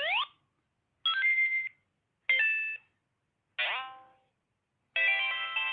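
Sonic the Hedgehog plush toy's sound chip playing electronic sound effects: a quick rising sweep, two short beeps and a falling sweep, each separated by a pause. About five seconds in a longer electronic tune begins.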